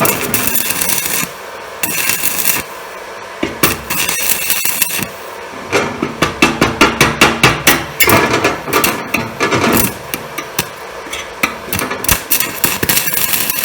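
Stick (MMA) arc welding with a basic-coated UONI 13/55 electrode, done with the arc repeatedly broken and re-struck: bursts of crackling, sputtering arc about a second or two long, separated by short quieter gaps, several times over. Welding this way with basic-coated electrodes goes poorly.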